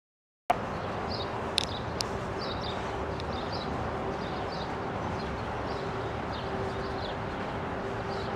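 Outdoor city street ambience that cuts in about half a second in after digital silence: a steady noise bed with a faint steady hum, small birds chirping throughout, and two sharp clicks near the start.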